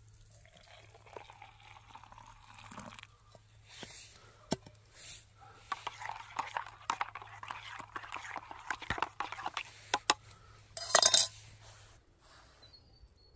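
Boiled water poured from a small camping pot into a steel mug, then a spoon stirring coffee in the mug with many small clinks against the metal. A brief louder sound comes near the end.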